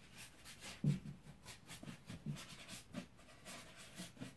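Rustling, scraping and light knocks of the camera being handled up close, with one sharper thump about a second in.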